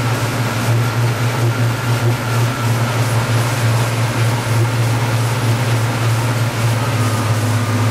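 Twin Caterpillar 3116 diesel engines of a 31 ft sport-fishing boat running steadily underway: a constant low drone with a broad rush of noise over it.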